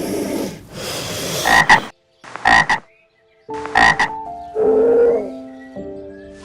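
Short animal calls, cut together in quick snippets: a few brief calls with abrupt silent gaps between, then a stretch of steadier held tones.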